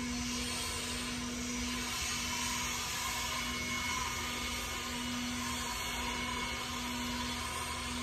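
Lawn mower running steadily.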